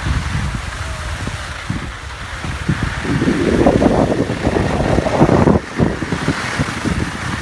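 Wind buffeting the microphone with a steady low rumble, and a louder rushing noise from about three seconds in that cuts off suddenly a little after five seconds.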